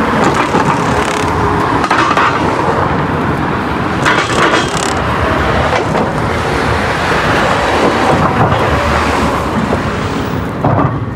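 Steady road traffic noise, with vehicles passing and swelling louder a couple of times.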